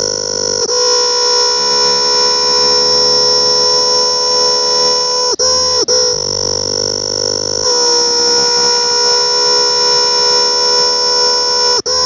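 A cicada calling at close range: a loud, steady, high-pitched buzz with a clear pitch, which dips and breaks off briefly twice about halfway through and once more near the end.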